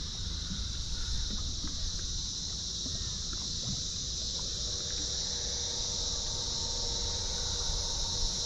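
Steady, high-pitched insect chorus from the surrounding bush, over a low rumble of wind and water. A faint steady whine joins about halfway through.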